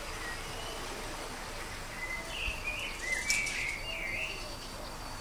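A songbird calling a short run of chirps and warbling notes, starting about two seconds in and lasting about two seconds, over a steady outdoor background hiss.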